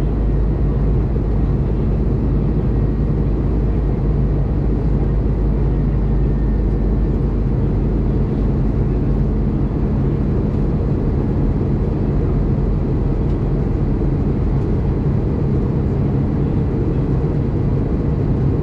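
Steady cabin noise inside an Airbus A320 in flight on its descent: a constant low rumble of engines and rushing air with a steady hum under it.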